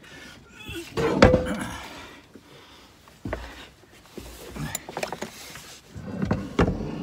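Heavy metal slide-out camp kitchen unit being set down and shifted into place: a series of knocks and scrapes of metal on the cargo floor, the loudest about a second in with a brief ring.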